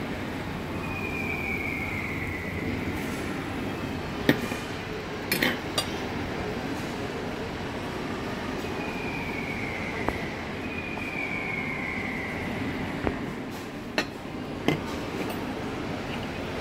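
Cutlery clinking and scraping on plates over a steady background hum, with seven or so sharp clinks through the middle and near the end. Two pairs of short high squeals fall in pitch, like a knife drawn across a plate.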